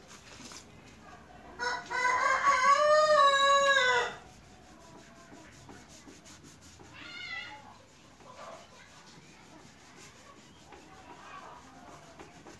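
A rooster crowing once, a long, loud call starting about two seconds in. A fainter, shorter call follows a few seconds later.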